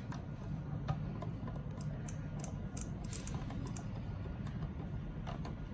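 Scattered light clicks and taps of hand work on small wiring, a wire being fitted into a relay's screw terminal, over a steady low hum.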